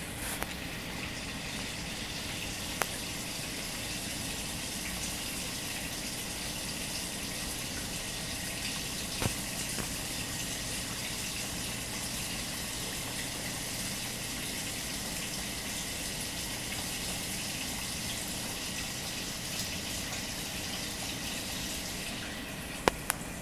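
Steady sound of water running and splashing in a vivarium's water section, as from a circulating pump or water feature, with a few light clicks, two of them close together near the end.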